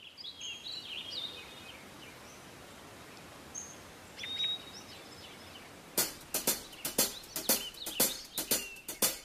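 Songbirds chirping over faint outdoor ambience, then from about six seconds in a quick run of sharp ticks, about three to four a second.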